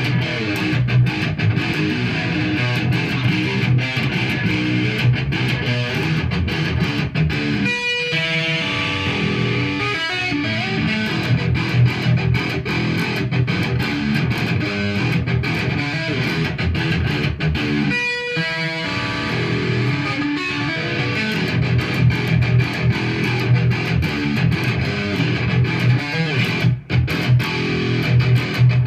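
Solo electric guitar playing a steady stream of fast picked notes, with a few clear ringing notes about 8 and 18 seconds in.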